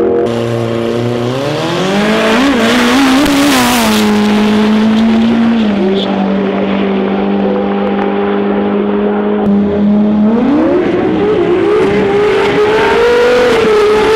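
Drag-racing engines at full throttle. The pitch climbs in the first couple of seconds and then holds steady, and near the end another engine revs up with a second rising pitch.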